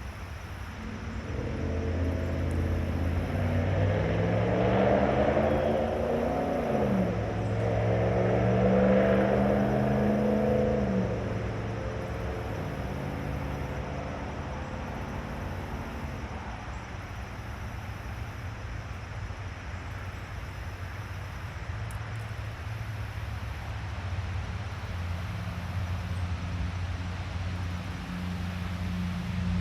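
Motor vehicle engine running up through the gears: its pitch rises, drops suddenly about seven seconds in at a gear change, rises again and fades away by about sixteen seconds. A steady low hum runs underneath and grows louder near the end.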